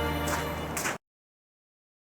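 Background music with held notes that cuts off abruptly about a second in, then dead silence.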